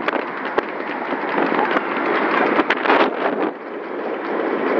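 Wind buffeting the microphone and road noise from a moving car, a steady rushing noise with a few sharp clicks scattered through it.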